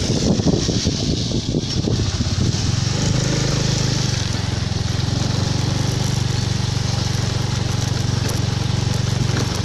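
Motorcycle engine running steadily, taking over about three seconds in; before that, wind buffets the microphone.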